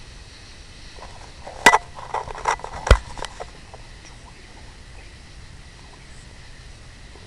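Handling noise on a night-vision recorder: a sharp click about a second and a half in, a run of smaller clicks and knocks, then a heavier knock about a second later, over a steady faint hiss.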